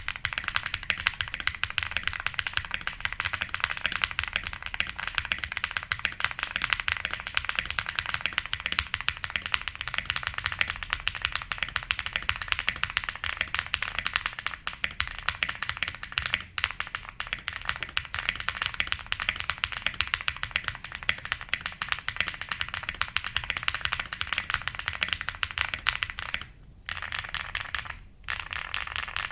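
Fast, continuous typing on a Link 65 mechanical keyboard with a thocky sound: a dense stream of keystrokes, broken by two short pauses near the end.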